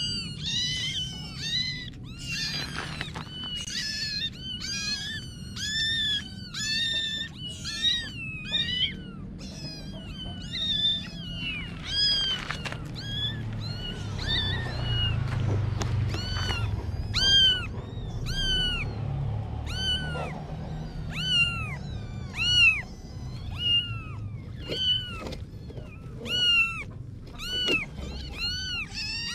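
Kittens meowing over and over in short, high-pitched meows, about one or two a second, some calls overlapping.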